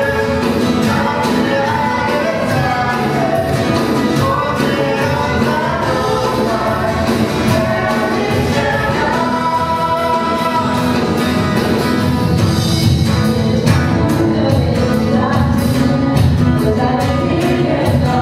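A live worship band playing a song: women singing into microphones over keyboard, acoustic guitar and bass guitar, with a regular percussive beat.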